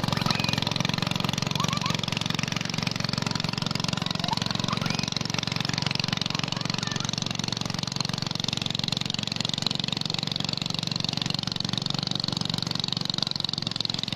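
Motorboat engine running steadily with a fast, even throb as the boat passes, growing slightly fainter toward the end.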